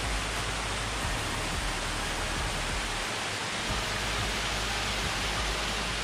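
Steady rushing hiss with an uneven low rumble underneath, which dips out briefly about halfway through.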